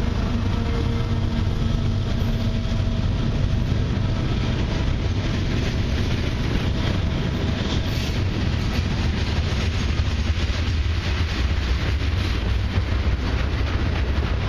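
Freight train's covered hopper cars rolling past at close range: a steady rumble of steel wheels on rail.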